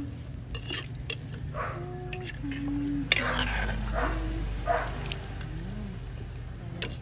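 A metal ladle stirring pieces of tilapia in a pan of simmering coconut milk, scraping and clinking against the pan a few times, loudest about three seconds in, over a soft simmering sizzle.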